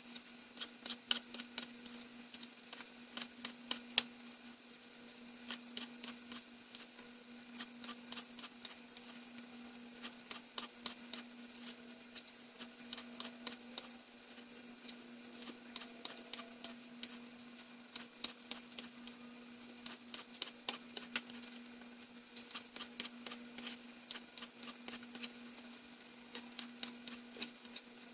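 Kitchen knife slicing baby portobello mushrooms on a cutting board: runs of sharp taps, several a second, with short pauses between. Under them a steady low hum and the faint sizzle of chicken frying in a pan.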